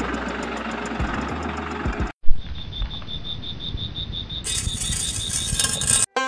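The small electric motor of a homemade toy tractor runs with a steady hum and cuts off suddenly about two seconds in. Then comes high insect chirping in an even trill of about seven pulses a second, joined a couple of seconds later by a higher, hissing chirp.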